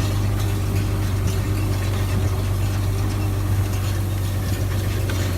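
Farm tractor engine running steadily with a deep, even drone.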